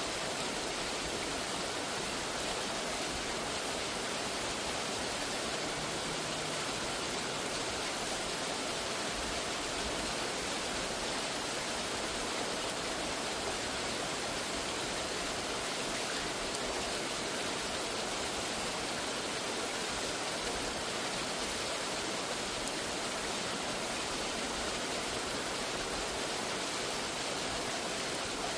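A waterfall's falling water, rushing in a steady, unbroken hiss.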